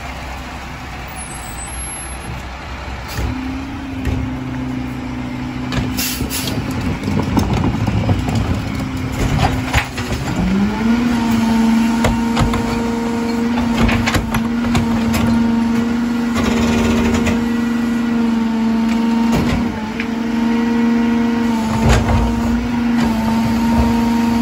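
Rear-loader garbage truck running its cart tipper: the engine and hydraulics step up from idle about three seconds in and rise again about ten seconds in to a steady higher hum as the trash cart is lifted and dumped into the hopper. A short air hiss comes about six seconds in, and knocks and clatter of the cart and falling trash come throughout.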